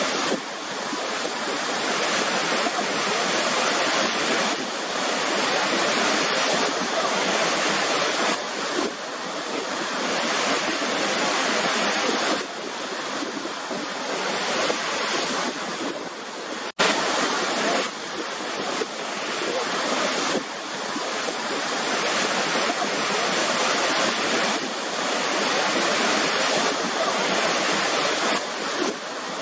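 Waterfall rushing in a steady, dense roar of falling water with gentle swells, broken by a momentary gap about halfway through.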